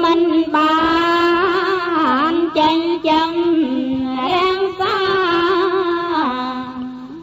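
A single voice chanting Buddhist verses in long, drawn-out melodic phrases, with wavering ornaments on the held notes. The phrase drops in pitch and fades out near the end.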